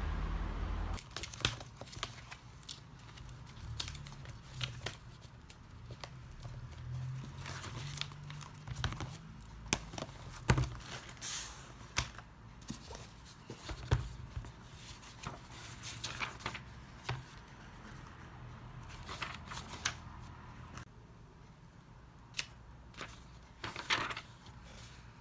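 Irregular clicks, taps and rustling of objects being handled, a few louder knocks among them, over a faint low hum.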